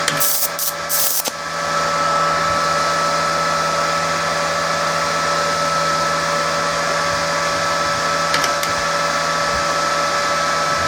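Resanta 190K welding inverter running on test: its cooling fan blowing steadily with a steady electrical whine. In about the first second, a few short crackling hisses.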